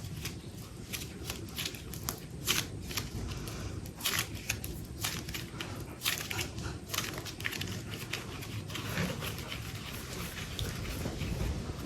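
Super light clay being squeezed and worked by hand, giving irregular soft crackles and small clicks over a low rumble.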